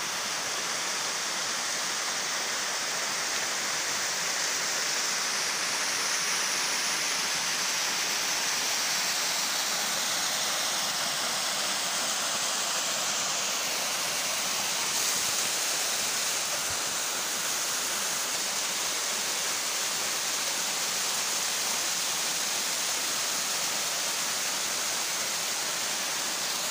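Small waterfall pouring over a rock ledge into a pool: a steady, even rush of falling water.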